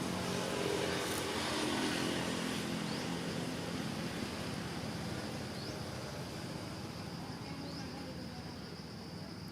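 A motor vehicle passing on the road, loudest about a second or two in and then fading away. A steady high insect trill runs underneath.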